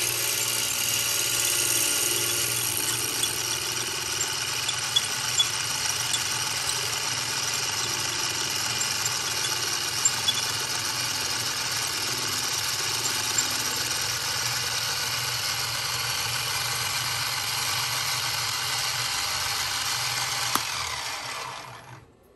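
StewMac Safe-T-Planer spinning in a drill press, its cutters shaving the face of a wooden handle block as it is fed across: a steady whir and cutting hiss with a few sharp ticks. The machine is switched off near the end and the sound dies away.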